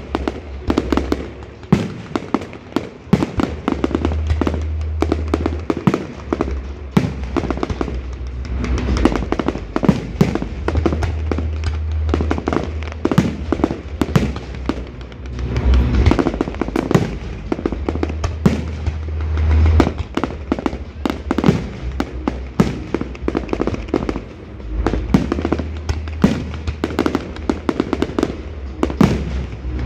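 Fireworks display: a dense, continuous run of shell bursts, bangs and crackle, over music with a deep, steady bass line.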